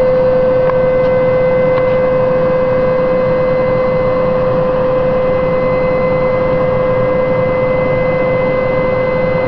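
ShearTrac II direct shear machine's vertical drive motor running steadily while jogging the load frame, giving a loud, constant whine with fainter higher overtones. Two faint clicks come in the first two seconds.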